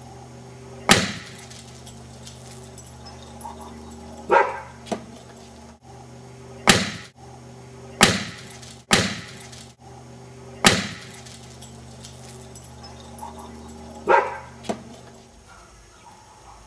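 Dogs barking: about nine loud, sharp barks, a couple of them doubled, over a steady low hum.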